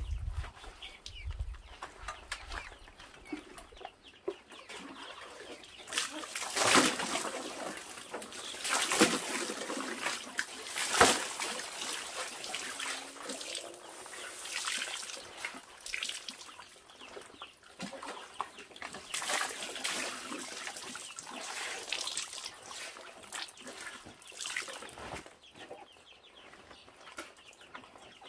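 Water splashing and sloshing at a large earthenware water jar as it is scooped and poured during bathing and a shirt is dunked and wrung in it, in irregular splashes, the loudest a few seconds in and again around the middle. Chickens cluck in the background.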